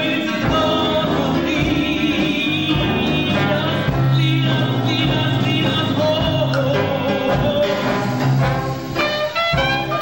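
Background music: a song with a singing voice over a band, playing steadily.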